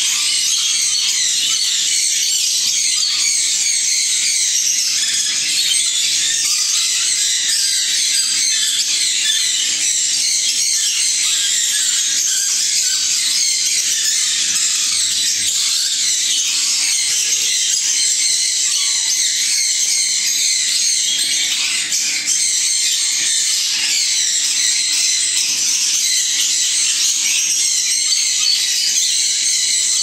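A large flock of budgerigars chattering, many birds chirping at once in a steady, high-pitched din.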